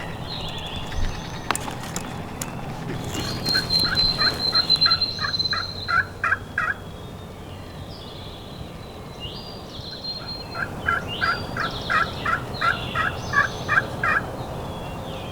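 Wild turkey yelping: two runs of about eight to ten evenly spaced notes, a few seconds apart, with small songbirds calling at a higher pitch.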